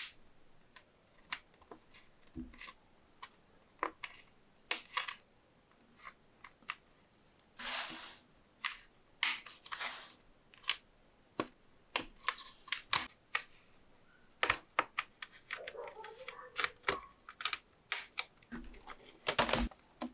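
Irregular small clicks and taps of hands working on a laptop's casing, screws and parts, with a longer scrape about eight seconds in.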